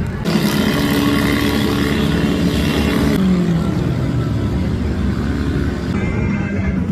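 Car engine revving loudly for about three seconds, then its pitch falls and it settles back to a lower, steadier run.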